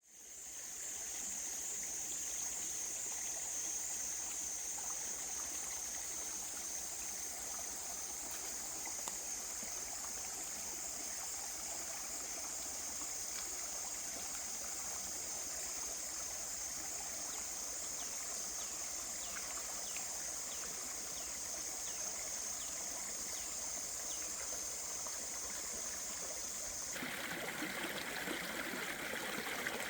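Steady outdoor sound of running stream water with a high hiss over it. About 27 seconds in, the high hiss stops abruptly and a fuller, lower rushing sound takes over.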